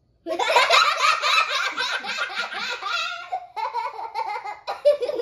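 Children laughing hard, breaking out suddenly just after the start and going on in quick peals.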